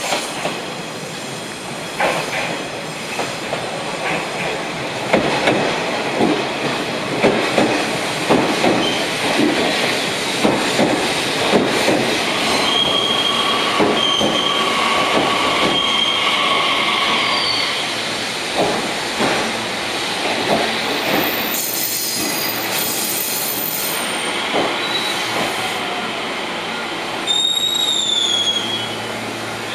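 Nishitetsu type 3000 electric multiple-unit train arriving and stopping at a platform. Its wheels click over rail joints, then high steady squeals sound as it slows, followed by the steady noise of the train standing. A short high falling tone comes near the end.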